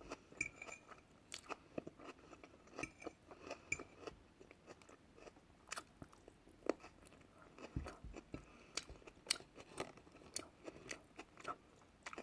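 A person chewing food close to the microphone, with irregular crunchy bites and small wet clicks of the mouth.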